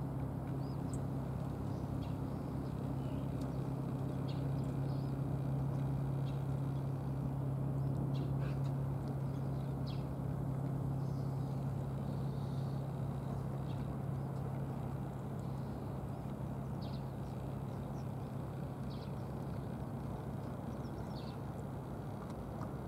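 Harbour ambience: a steady low mechanical hum, its upper tone fading about halfway through, with scattered short bird chirps over it.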